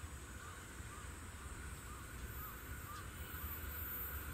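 Low rumble of an EH500 electric locomotive's freight train approaching in the distance, slowly getting louder. Over it, a bird calls in short repeated notes about twice a second, with a faint steady insect buzz.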